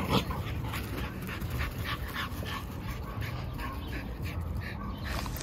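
Dog sounds: a run of short, soft scratchy noises, about three a second.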